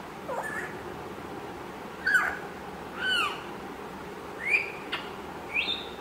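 African grey parrot giving a string of about five short whistled calls, each sliding up and then down in pitch, spaced roughly a second apart.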